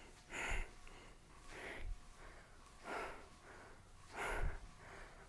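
A woman's short, hard breaths out, about one every second and a quarter, in rhythm with resistance-band side bends.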